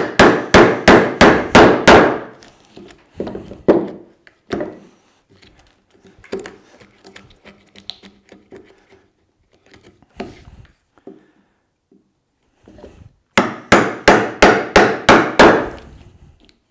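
Mallet blows driving a bevel-edge chisel into a softwood 2x4 to chop out a mortise: a quick run of sharp strikes, about three or four a second, at the start and another near the end, with quieter knocks and scrapes of the chisel in between.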